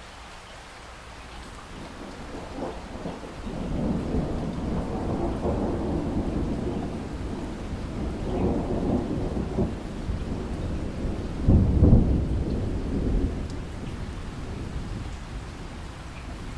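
Thunder rolling over steady rain. The rumble builds from about two seconds in, swells for several seconds, peaks with its loudest crash about twelve seconds in, then dies away, leaving the rain.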